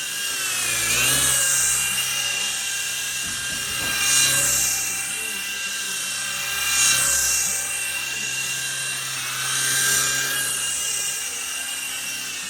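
Toy RC helicopter's small electric motors and rotor running with a high whine that dips and recovers in pitch as the throttle is worked, swelling louder about every three seconds.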